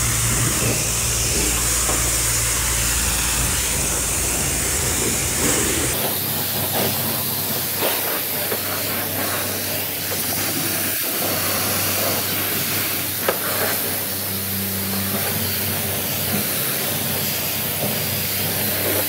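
Car wash pressure wand spraying water onto a car's wheels and front bumper: a steady loud hiss of the jet striking tyre, rim and paint, with a low steady hum underneath.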